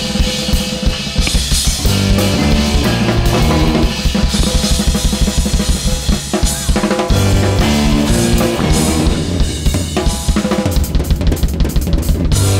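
Drum kit played live in a fast, dense groove, with bass drum, snare and cymbal strokes, over a pitched bass line that moves from note to note.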